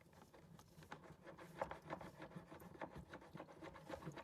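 Faint scratching and light irregular clicks of a stiff wire being worked back and forth through a refrigerator's plastic drain tube to clear a blockage.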